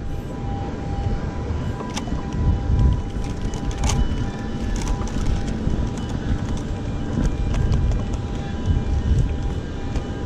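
Wind buffeting the microphone in an uneven low rumble, with a few sharp clicks scattered through it.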